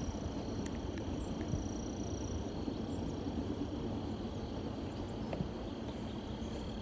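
Outdoor morning ambience: a steady low rumble with faint, high, steady insect trilling over it and a few light ticks.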